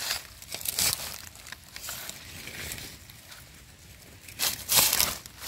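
Dry leaf litter rustling and crackling as a gloved hand picks mushrooms from the forest floor, with a louder burst of crunching near the end.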